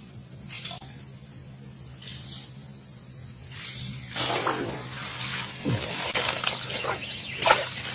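Water splashing and sloshing with a few sharp splashes, starting about halfway through, over a faint steady low hum.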